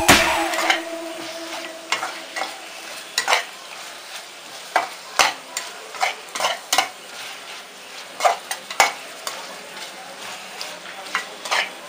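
Chicken pieces with green chillies frying and sizzling steadily in a pan as they are stirred, with irregular sharp scrapes and knocks of the stirring utensil against the pan.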